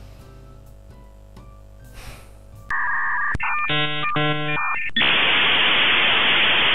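Faint background music, then, about three seconds in, a dial-up modem connecting: steady beeping tones, a pulsing run of tones, and then a loud, even hiss of static.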